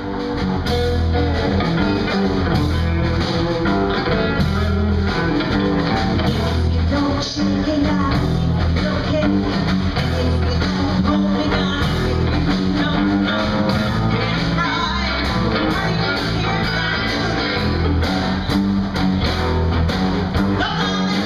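Live blues band playing: electric guitars and bass over a steady beat, with a woman singing lead.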